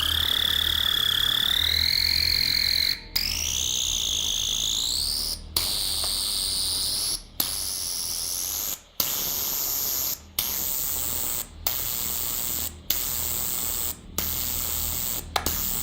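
A high electronic tone that keeps climbing in pitch, broken by short silent gaps that come faster and faster, from about every two and a half seconds to about every second. It ends very shrill. A steady low hum runs under it.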